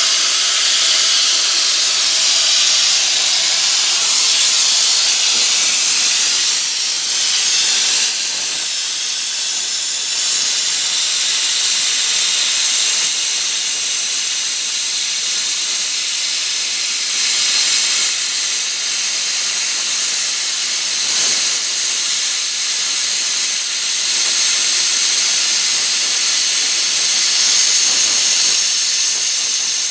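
Hypertherm Powermax 1000 plasma cutter cutting through the inch-thick steel of a lathe bed: a loud, steady hiss of the plasma arc and its air jet, with no break.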